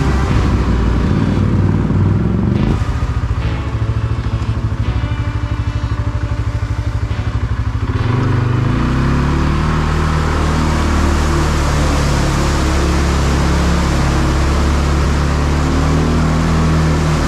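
ATV engine running at low revs with a rapid even pulsing, then revving up about halfway through and holding a steady higher speed.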